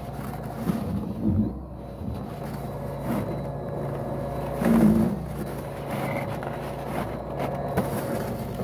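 Snapper XD 82-volt brushless battery snow thrower running steadily, its motor and impeller humming as it is pushed into snow, with brief louder swells about a second in and again near five seconds and a few sharp knocks.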